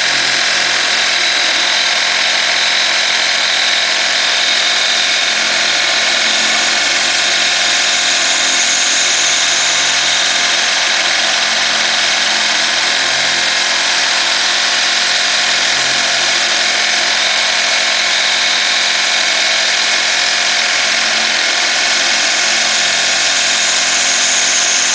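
Optimum BF20L milling machine, CNC-retrofitted, with its spindle running steadily while an end mill profiles aluminium plate.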